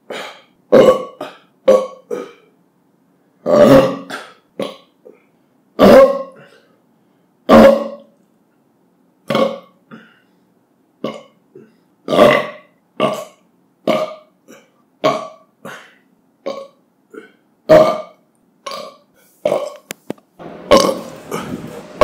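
A man belching again and again: about thirty short burps in quick succession, a few of them longer and louder, each cut off sharply into silence.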